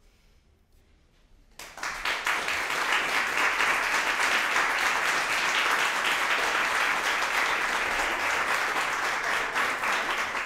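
Audience applauding at the end of a performance, breaking out suddenly about a second and a half in after a brief hush and then holding as steady, dense clapping.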